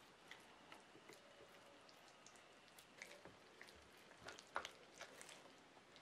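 Faint wet squishing and scattered small clicks from marinated raw pork ribs being handled on a wooden board, with one louder click about four and a half seconds in.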